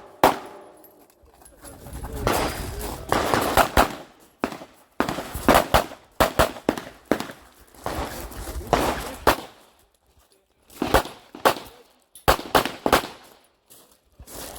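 Pistol shots at an action-shooting match, fired in quick strings of a few shots with short pauses between them.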